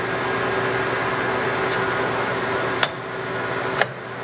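Acer 2060G gap-bed lathe running under power at medium spindle speed with the carriage power feed engaged: a steady hum of spindle and gearing with a steady tone. Two sharp clicks come near the end, about a second apart.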